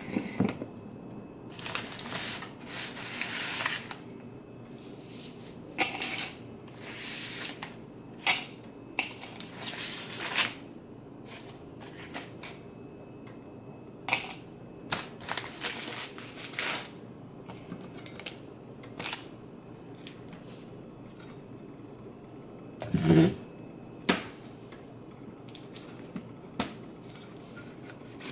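Kitchen food-prep handling: scattered clicks and knocks of a knife and utensils on a plastic cutting board and countertop, with stretches of rustling in the first ten seconds and one heavier knock near the end.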